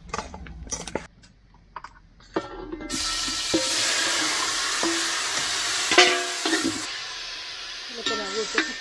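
A metal spoon clinks and scrapes in a steel bowl. About three seconds in, seasoned meat drops into hot oil in a pot over a wood fire and starts to sizzle loudly, and the hiss goes on steadily while it is stirred.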